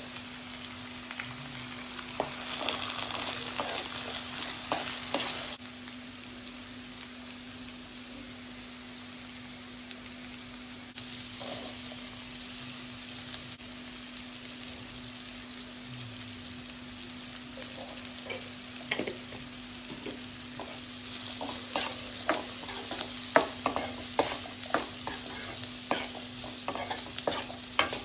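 Onions, peas and diced carrots sizzling in hot oil in a pan while a steel spoon stirs them, scraping and clicking against the pan. The clicks come thick and sharp in the last several seconds.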